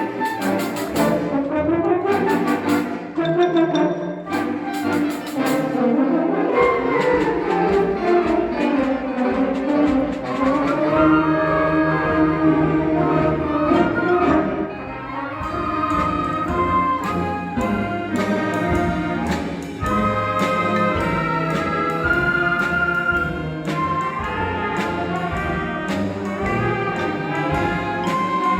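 High school symphonic band playing a Christmas medley, with brass carrying the tune over sustained chords. Sharp percussion hits punctuate the first few seconds.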